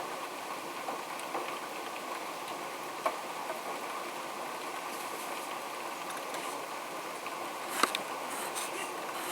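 Heavy rain falling steadily, with scattered sharper drips and taps, the loudest a little after 3 seconds and just before 8 seconds in.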